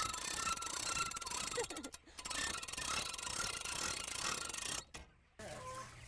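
A hand-crank ratchet winch clicks rapidly as it rolls up the side curtain of a chicken pen. There is a short break about two seconds in, and the sound cuts off suddenly near the end.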